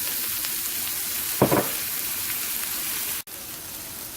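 Bacon, mushrooms, butter and fresh garlic sizzling steadily as they fry in a pan. The sizzle drops abruptly in loudness about three seconds in, then carries on more quietly.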